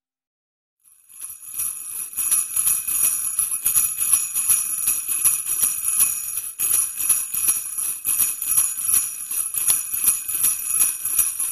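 Sleigh bells shaken in a steady, quick rhythm, starting about a second in after silence.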